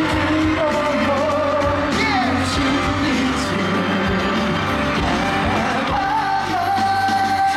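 Live pop music played loud in a concert hall, with a singer's voice over the band backing. Near the end the music settles onto a long held note.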